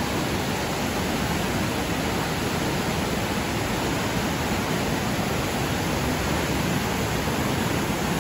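Fast-flowing mountain river rushing through whitewater rapids over rocks, a steady unbroken rush of water.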